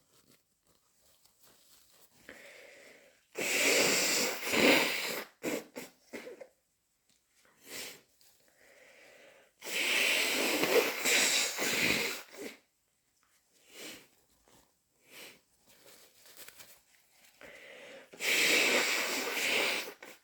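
A person with hay fever sneezing in three loud bouts, each about two to three seconds long and preceded by a quieter build-up breath.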